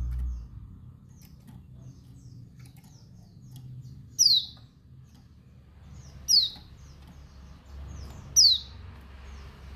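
Female pleci (white-eye) calling: three loud, high calls sweeping steeply downward, about two seconds apart, between faint short chirps. This is a call that provokes male white-eyes. A low rumble fades out at the very start.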